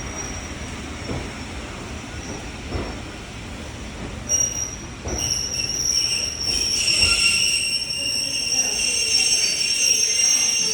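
Train hauled by a Class 27 diesel locomotive slowing into a station. A low rumble with a few soft knocks gives way about halfway through to high-pitched brake and wheel squeal, which grows loud and holds as the train draws to a stop.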